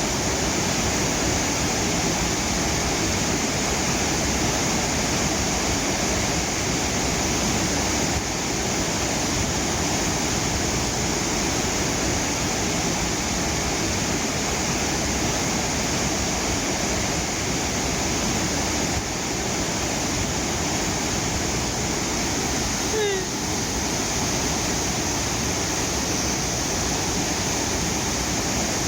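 River water rushing over a cascade, a steady loud rush. The level drops slightly twice, about eight and nineteen seconds in.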